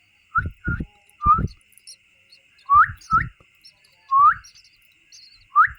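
A person making short rising whistles with lip smacks, seven in a few seconds, to call a baby bird to gape for food.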